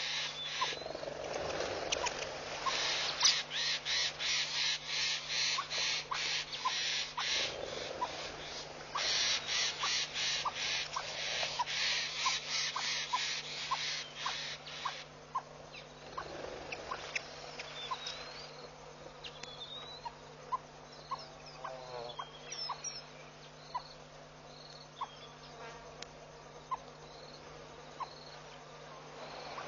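Bush ambience of insects and birds: a loud, high insect buzz pulsing about three to four times a second stops about halfway, with a soft regular ticking call throughout and small bird chirps in the second half, over a faint steady hum.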